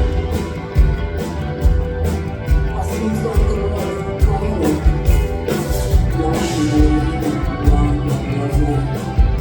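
A post-punk band playing live, with drums and bass on a steady beat and guitar over them.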